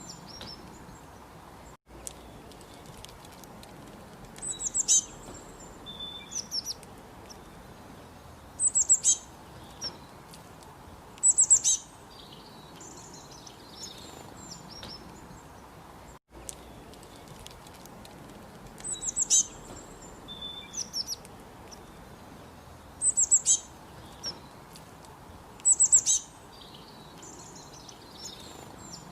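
Small birds chirping and trilling in short, high clusters every two to three seconds over a faint steady hiss, the same run of calls coming round again about halfway through.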